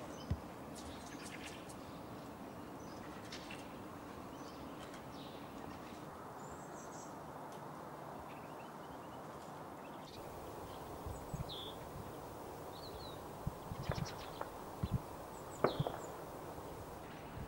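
Male pine grosbeak giving short calls, with fieldfares chattering in the background, over steady low background noise; the calls are scattered and the loudest come near the end.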